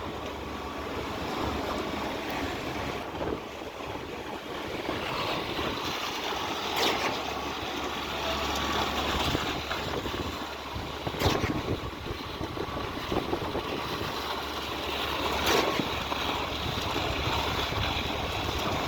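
Concrete pump running steadily under wind noise, with a short knock about every four seconds as its pumping stroke changes over.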